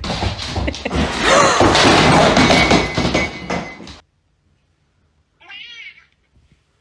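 Loud scuffling noise with knocks and thuds, which stops abruptly about four seconds in. After a pause comes a short, warbling cat meow.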